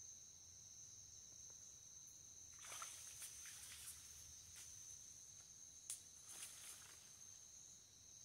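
Faint, steady, high-pitched insect drone, with brief rustling and crackling of leaves and brush about three seconds in and again around six seconds, including one sharp click.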